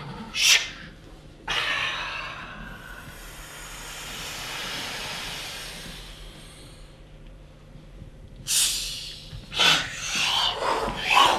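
Performers' improvised breath and voice sounds: a short sharp hiss, then a long hissing exhale that fades away over several seconds, then quick breathy bursts mixed with voiced sounds near the end.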